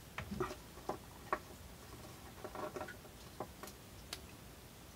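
Light, irregular clicks and ticks, a few every second, the sharpest just over a second in.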